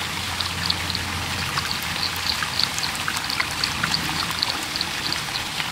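Fountain water splashing and dripping into a pond: a steady wash with many small droplet plinks.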